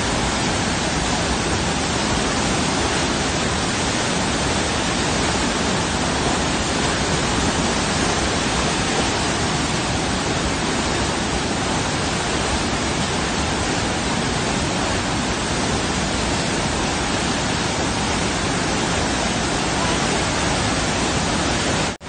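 A large waterfall in full flow close by: a heavy mass of water rushing and crashing down rock, making a dense, steady rush of sound that doesn't change.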